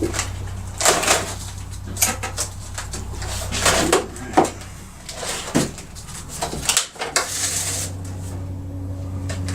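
Irregular metal clinks and clanks of tools and parts being handled as a side cover with felling dogs is fitted onto a chainsaw, over a steady low hum.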